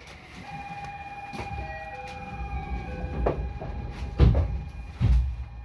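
JR West 223 series 2000 electric train pulling away: steady whining tones from the traction equipment over a growing low rumble, with three heavy clunks from the wheels, the loudest about four seconds in.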